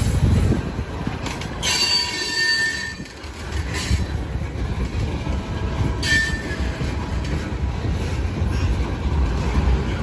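Freight train of tank cars rolling past: a steady low rumble of steel wheels on rail, with brief high wheel squeals about two seconds in and again about six seconds in.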